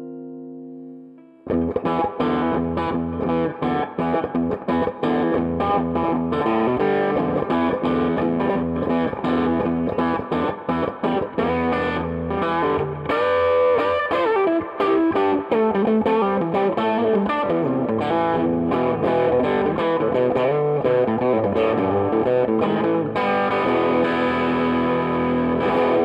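Echopark Ghetto Bird electric guitar (koa top, chambered mahogany body) played through an amplifier. A held chord dies away, then about a second and a half in a busy passage of picked notes and chords begins, with pitch bends around the middle.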